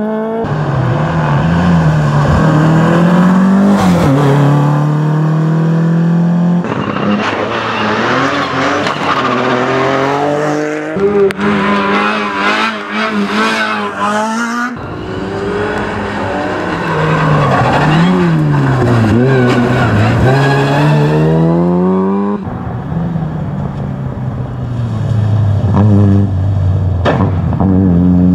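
Small rally cars driven hard on tarmac, engines revving up and dropping through gear changes as they brake and accelerate through corners. The sound jumps abruptly from one car to another every few seconds.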